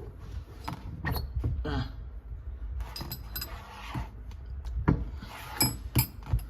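Steel workholding parts being handled: a series of sharp metal clinks and knocks, loudest near the end, over a low handling rumble.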